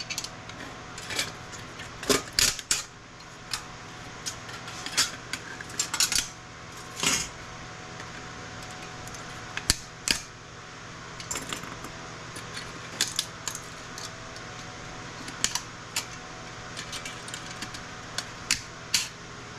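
Irregular sharp metallic clicks and clinks as steel shielding and components are pried off circuit boards with hand tools and pieces knock against the boards, over a steady low hum.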